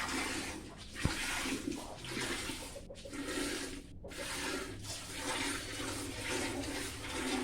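Water running and splashing, surging and easing every second or so.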